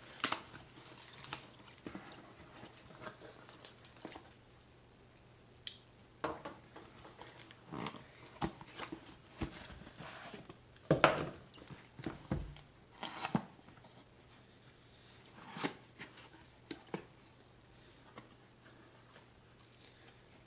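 Cardboard box and packaging being opened and unpacked by hand: scattered rustles, scrapes and light taps, the loudest few near the middle.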